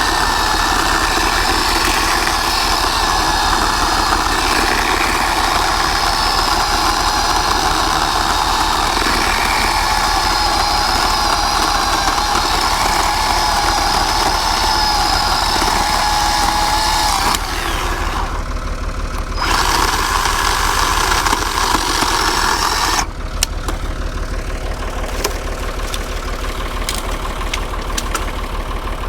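Bauer 20-volt cordless electric chainsaw running and cutting wood: a steady, high motor-and-chain whine that wavers under load. It dips briefly about 17 seconds in and stops about 23 seconds in, leaving scattered clicks over a low, steady engine-like hum.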